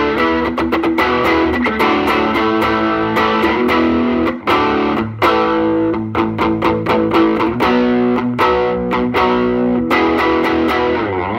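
Fender Made-in-Japan Jaguar electric guitar with its two pickups switched in series as one big humbucker, played with light overdrive through a Fender '68 Custom Princeton Reverb amp: strummed chords and riffs, with a short break about four and a half seconds in.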